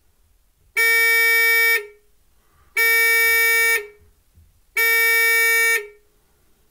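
Electronic buzzer on a solar water heater controller sounding three steady, loud beeps, each about a second long and spaced two seconds apart.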